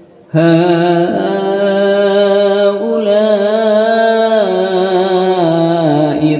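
Quran recitation chanted in melodic tajweed style: one voice holds a single long, drawn-out phrase on one breath. The pitch steps up twice and then falls away in the second half.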